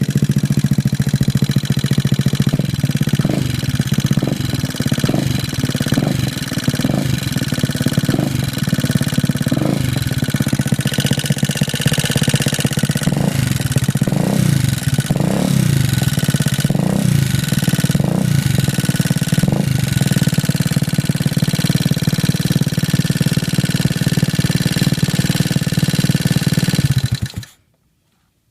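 GY6 single-cylinder four-stroke scooter engine running with a ticking, its throttle blipped repeatedly in short revs, then shut off near the end. The tick persists after an A12 cam install and a valve clearance setting of .05 on both valves.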